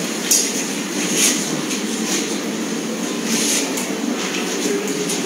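Steady low rumbling background noise of a large hall, with a few brief faint clicks and rustles.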